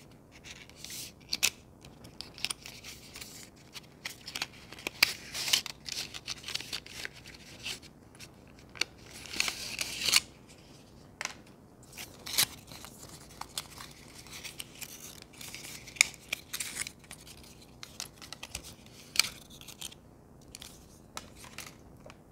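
Small plastic packaging being opened and handled by hand: irregular rustling, crinkling and sharp clicks, with louder bursts of tearing or snipping about five and nine seconds in.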